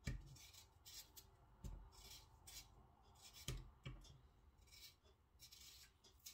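Small kitchen knife peeling potatoes: faint, short scraping strokes at an uneven pace, some with a soft knock.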